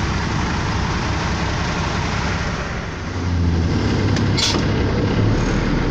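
Truck's engine running with road noise on a wet highway, heard from inside the cab; the deep engine hum grows louder about three seconds in. A short hiss comes about four and a half seconds in.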